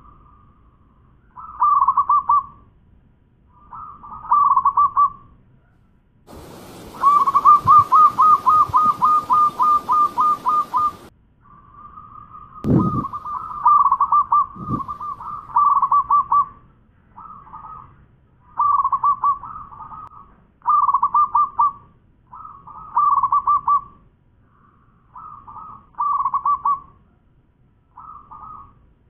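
Zebra dove (perkutut) singing: short phrases of quick, trilled cooing notes repeated every second or two, with one longer run of rapid notes over a hiss about a third of the way in. Two low knocks come near the middle.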